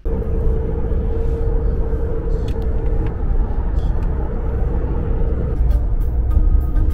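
Car driving at highway speed, heard from inside the cabin: a steady low rumble of engine and road noise with a steady hum running through it that fades out about five seconds in.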